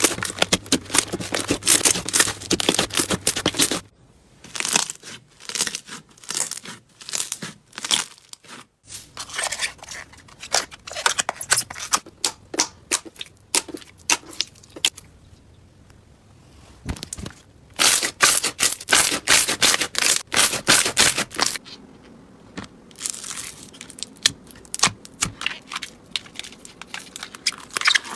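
Crunchy slime being squeezed and pressed by hand, giving rapid crackling pops in bursts. The crackling is densest at the start and again in the middle and the latter part, with sparser pops in between.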